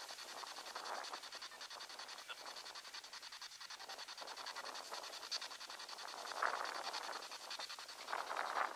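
SB7 spirit box sweeping through radio stations: a steady hiss of static chopped into a rapid, even stutter, with louder snatches of sound about six and a half seconds in and near the end.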